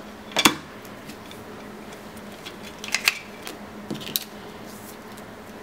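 Paper and card packaging being handled against a clear plastic case: a sharp click about half a second in, then short rustles and taps around three and four seconds in.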